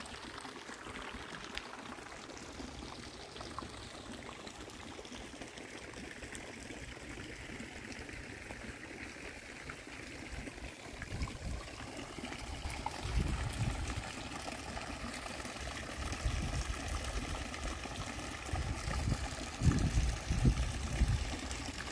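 Steady running, trickling water, with low rumbles of wind on the microphone coming and going from about halfway through.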